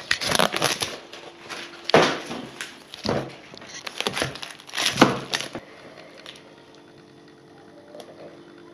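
Cardboard rifle-scope box and plastic packaging being handled, rustling and crinkling in several bursts over the first five seconds or so, the loudest about two and five seconds in. After that only a faint steady hum remains.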